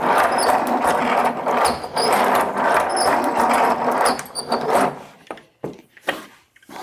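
Wooden wheel and string-driven mechanism of a kinetic wave sculpture being turned by hand: a dense mechanical clatter with small high clicks through it, dying away about four seconds in, followed by a few separate knocks.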